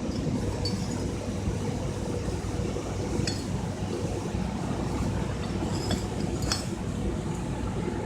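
Steady low mechanical rumble from a pipe CNC plasma cutting machine at work, with a few light metallic clinks scattered through it.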